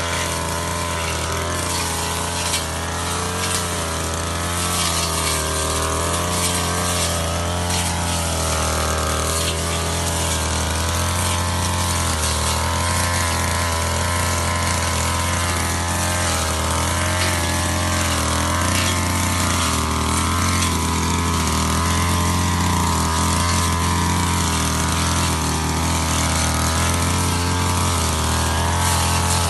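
Ogawa two-stroke brush cutter running at high revs, its pitch wavering up and down as the blade cuts through thick grass and brush.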